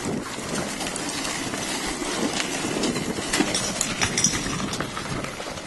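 DIY electric go-kart rattling over rough grass and gravel, with a run of knocks and a metallic clank about four seconds in. The riders think a stick came up and hit the drive chain, or the kart hit a stump or rock.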